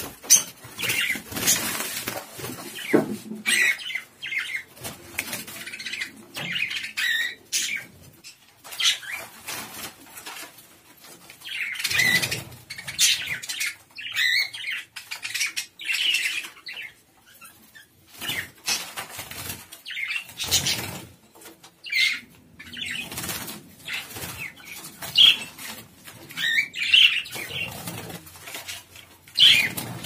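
Budgerigars flapping their wings and chirping in short scattered calls as they are caught by hand in a small wire cage, with rustling and knocks of the cage throughout.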